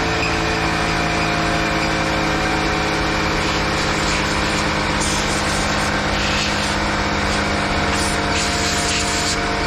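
Blower running steadily, blowing dirt and debris off a lawn mower; the air rush swells and falls as it is aimed over the machine.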